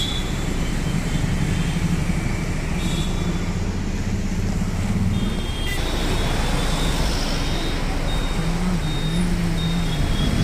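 Road traffic noise with a vehicle engine running steadily; about six seconds in the sound changes at a cut to the general noise of a busy street with passing traffic.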